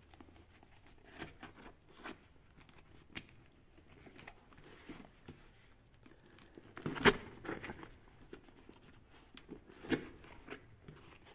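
Clear plastic packing tape on a small cardboard box being cut and pulled off, with scattered quiet scrapes and crinkles and two louder rips, about seven and ten seconds in. Near the end the cardboard flaps are pulled open.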